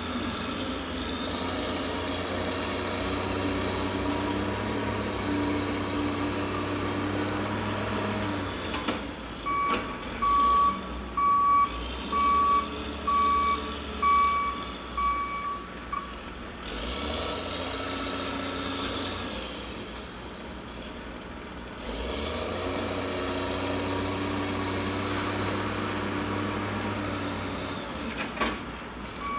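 Heavy equipment working in a mulching yard: an engine running hard in spells, and a backup alarm beeping about once a second for several seconds in the middle, starting again near the end.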